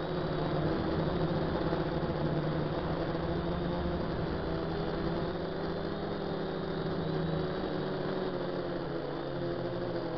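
DJI F450 quadcopter's brushless motors and propellers buzzing steadily in flight. The pitch drops near the end as the throttle comes back.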